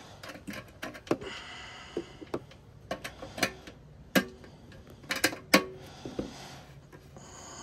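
Irregular light clicks and knocks, about nine of them spread unevenly, over a faint hiss.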